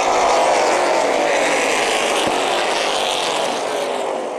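A pack of Outlaw Super Late Model stock cars' V8 engines running at racing speed as they pass close by. The engine note is loudest just at the start, then slowly falls in pitch and fades as the pack pulls away.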